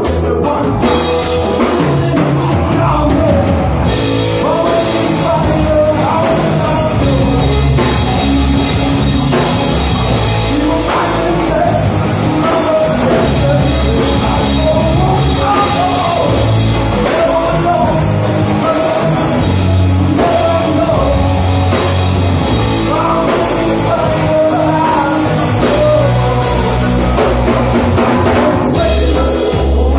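Live rock band playing: electric guitars, electric bass and a drum kit, with singing over them.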